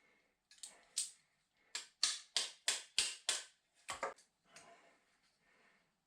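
A quick series of sharp clicks and knocks, about three a second at their densest, then faint scraping, as a VW T3 headlight and its adjusters are worked by hand to free the lamp from its frame.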